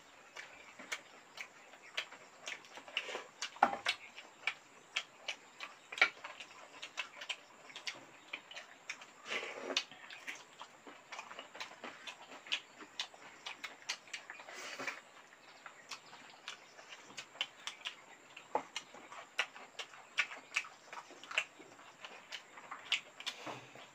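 Close-up eating sounds of people eating rice by hand: chewing and lip smacking, heard as a steady stream of irregular short clicks, a few of them louder.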